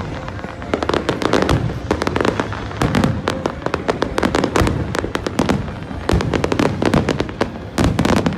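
Fireworks display in a dense, continuous barrage: many sharp bangs and crackles a second, overlapping with no let-up.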